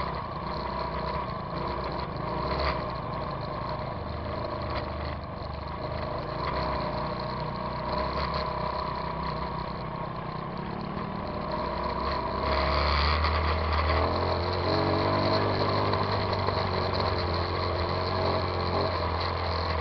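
Trail motorcycle engine running on a dirt track, heard from the moving bike. It grows louder about two-thirds of the way through.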